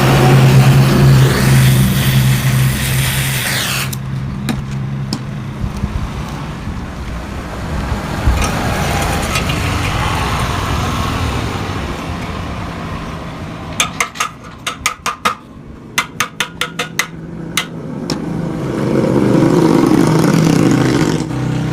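Yamaha RX-King's single-cylinder two-stroke engine running through a reworked aftermarket exhaust, loud and high at first, dropping back about four seconds in. Around two-thirds through comes a quick run of sharp cracks, then it revs up loud again near the end.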